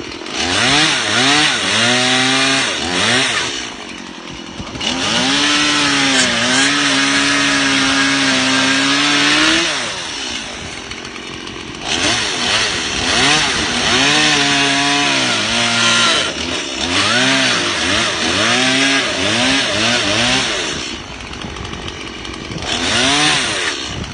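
Two-stroke chainsaw revved up again and again while cutting, held high for about five seconds in the middle, and dropping back to idle between the surges.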